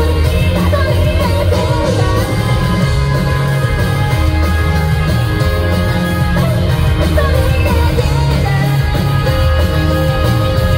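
A live rock band playing at full volume: electric guitars, bass and drums, with a young woman singing lead.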